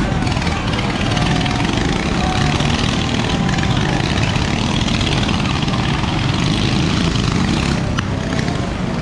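Small go-kart engines running steadily, their pitch drifting up and down as they are throttled.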